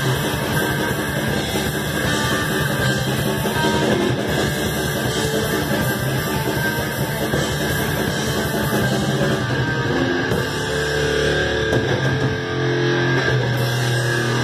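Metal band playing live: distorted electric guitars over a drum kit. The drumming is fast and dense at first, and from about ten seconds in the guitars hold long sustained chords.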